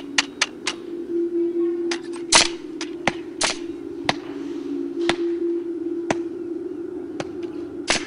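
Sound-art piece: a steady humming drone with irregular sharp clicks and snaps scattered through it, the loudest cracks about two and a half and three and a half seconds in.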